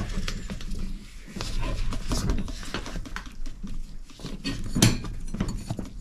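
A nylon tie-down strap being pulled and worked around a hand truck's tubeless tire: irregular rustling and scraping of webbing and hands on rubber, with a sharp click a little before the end.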